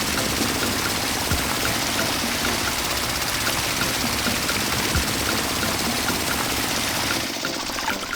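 A small motor running with a steady rushing, rattling noise and a few low thumps, dropping off near the end.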